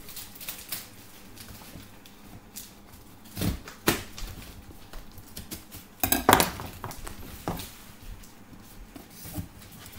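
Scattered knocks, scrapes and rustles from a large cardboard shipping box being handled and opened, with a short cluster of sharper clinks about six seconds in.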